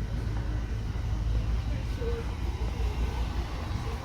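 Big-box store ambience: a steady low rumble with faint, indistinct voices in the background.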